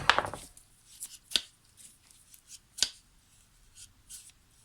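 Felco No. 2 secateurs being worked by hand after their pivot has been tightened: a few sharp clicks, two louder ones about a second and a half apart, with light handling rustle between.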